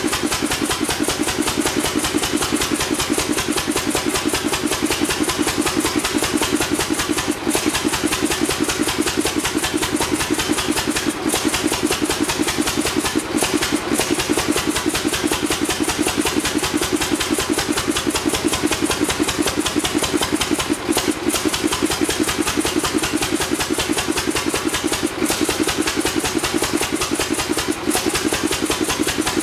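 A Witte stationary gasoline engine from about 1925 running steadily, with a fast, even beat of firing and clatter. The beat falters briefly a few times.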